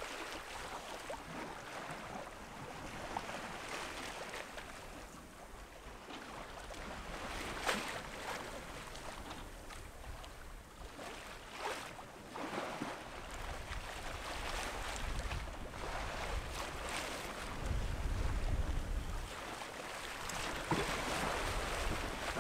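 Open-sea waves washing and splashing along a sailboat's hull under way, with a few sharper splashes. Wind buffets the microphone in low gusts, strongest in the second half.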